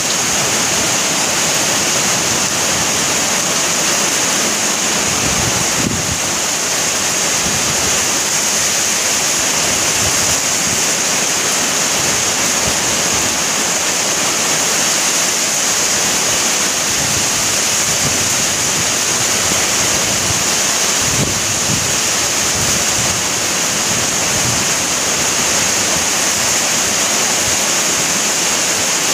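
Heavy rain falling steadily, an even hiss.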